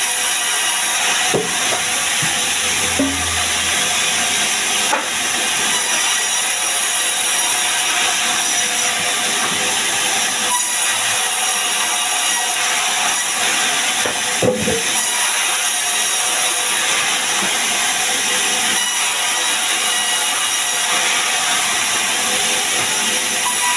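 Sawmill band saw running steadily, its blade ripping sengon (Albizia) logs and timber into beams, with a few knocks of wood being handled.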